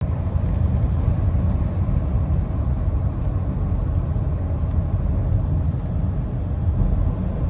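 Steady low road rumble of tyres on pavement and wind heard inside the cabin of a Rivian electric pickup cruising at highway speed, about 65 mph, with no engine note.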